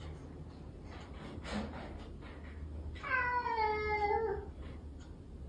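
A cat giving one drawn-out meow, about a second and a half long, sagging slightly in pitch toward the end.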